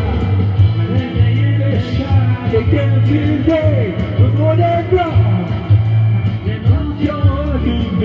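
Rock band playing an instrumental passage: electric guitars over a steady drum beat with regular cymbal strokes, and a lead melody line that bends and wavers in pitch.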